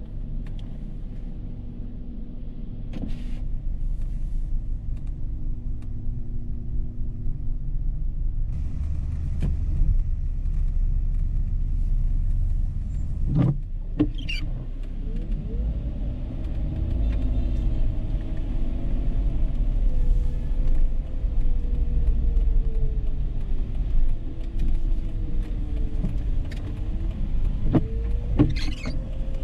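Dodge Charger 3.5-litre V6 driving on city streets: a steady low engine and road rumble, its engine note rising and falling as the car speeds up and slows from about halfway through. A few short knocks are heard along the way.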